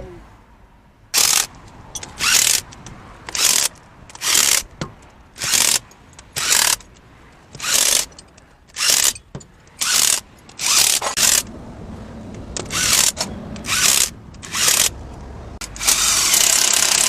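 Power wrench running in about fifteen short bursts, roughly one a second, then one longer run near the end: cover bolts on a three-wheeler's gearbox being run down and tightened.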